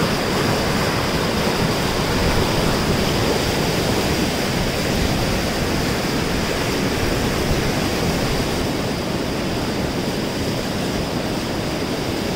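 Fast white-water river rapids rushing over rocks: a steady, very loud wash of water noise that does not let up.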